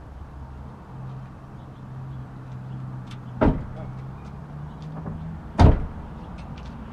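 Two loud bangs about two seconds apart, the second louder, like a lid or door being shut, over a low steady hum.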